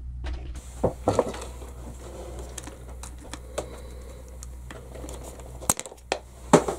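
Light clicks and taps of pliers working on the plastic rear sway-bar mounts of an RC buggy as the sway bar is taken off, with one sharper click near the end.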